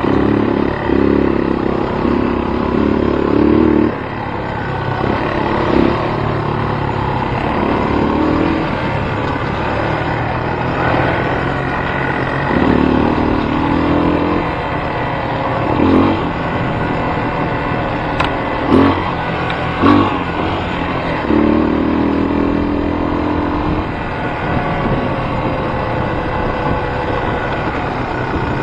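Engine running steadily, its note swelling for a few seconds at a time, several times over, with a few sharp clicks or knocks near the middle.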